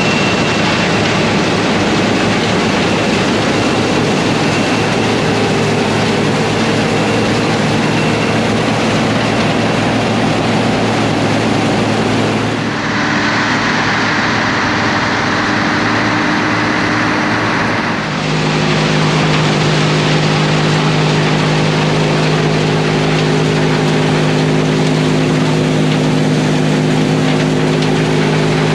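John Deere tractor engines and New Holland silage machinery running steadily. The sound changes abruptly twice, near the middle and again about five seconds later, after which a steadier humming set of engine tones takes over.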